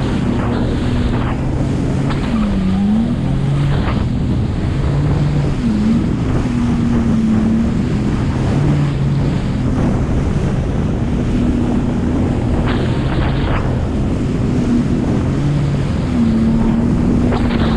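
Jet ski running at speed over choppy water. Its engine hums steadily and dips briefly in pitch now and then as the hull rides the chop. Wind buffets the microphone, and water slaps and sprays against the hull a few times.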